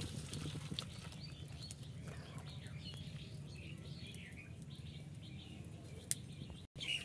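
Boiled, chopped banana flower and its cooking water tipped from a metal wok into a plastic colander, the water splashing and draining through. Birds chirp faintly in the background.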